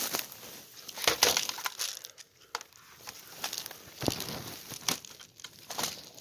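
Airsoft BBs being loaded by hand into an AK-style magazine: irregular small clicks and rustling from the handling.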